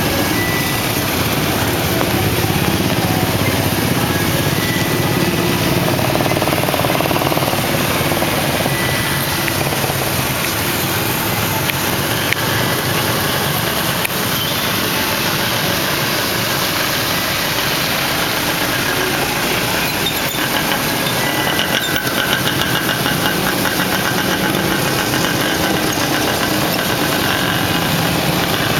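Motor traffic: vehicle engines running and idling in a steady din.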